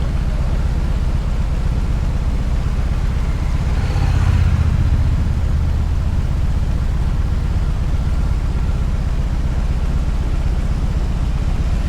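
BMW R18 Classic's big boxer twin engine running steadily while riding, mixed with road and wind noise, with a brief swell about four seconds in.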